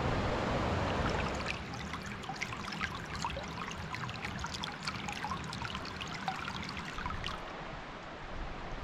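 Creek water: a steady rush of rapids for the first second and a half, then a shallow trickle over stones close by, with many small drips and gurgles.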